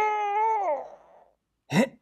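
A whiny, wordless cartoon-voice cry that falls away within the first second, then a short rising yelp near the end.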